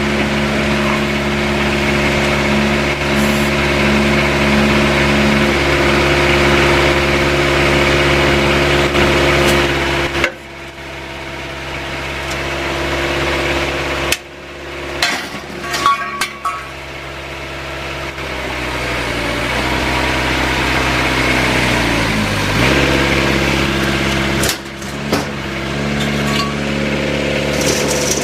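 Excavator diesel engine running under hydraulic load as a YSR070 hydraulic shear cuts 4-inch square steel tubing with 3/16-inch wall. The engine note sags and recovers as the shear works, with sudden drops and a cluster of sharp metallic clanks and brief ringing around the middle.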